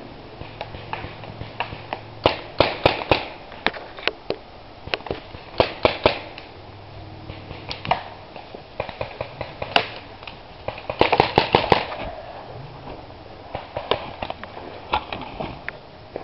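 Paintball markers firing in short volleys of sharp pops, with a fast string of shots about eleven seconds in.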